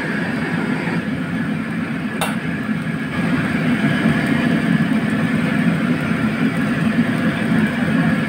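Steady low roar of a commercial gas wok burner heating a carbon-steel wok of simmering chili sauce. A single sharp click comes about two seconds in, and the roar grows slightly louder about three seconds in.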